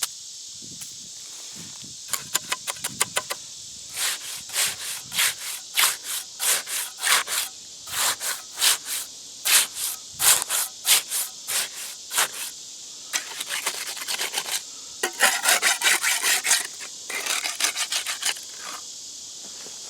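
Wet concrete being scraped and worked level in the top of a filled concrete block core: repeated short scraping strokes, about two a second, with a quick run of strokes near the start and a denser spell of faster scraping about three-quarters of the way through.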